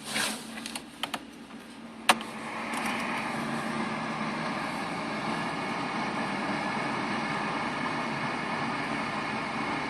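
BMW 318i M43 four-cylinder engine running, with the rattle the owner says appeared after the engine overheated from a failed water pump. A few clicks and a sharp knock come about two seconds in, after which the engine sound is louder and steady.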